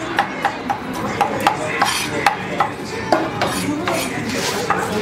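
Large kitchen knife chopping grilled meat and tomato on a thick wooden cutting board: a quick, uneven run of sharp knocks, about three a second.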